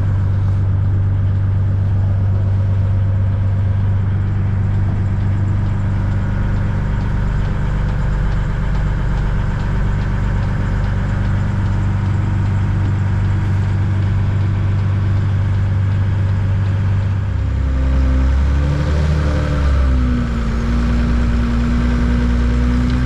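Hägglunds Bv206 tracked carrier's engine running at a steady idle, heard from inside the cab. About three-quarters through, the sound changes abruptly to a deeper engine note that rises and dips briefly, then holds steady.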